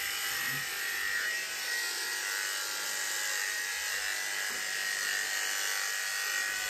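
Wahl KM2 corded dog clippers running steadily with a high hum while clipping a terrier's coat on the head and around the ears.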